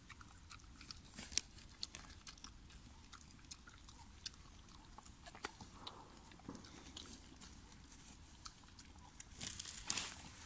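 Dog crunching and chewing a grilled bluefish head: a run of faint, crisp crunches and bites. A brief louder rustle near the end.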